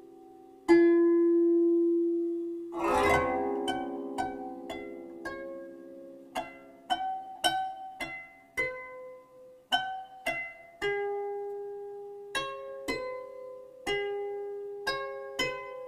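Background music of plucked strings: single notes, each picked and left to ring, following one another in a slow melody, with a fuller chord about three seconds in.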